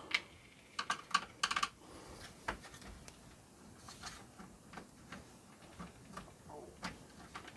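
Scattered small clicks and taps of a screwdriver working screws out of a boombox's plastic chassis, with screws set down on the bench. The clicks are thickest in the first two seconds, then sparse and faint.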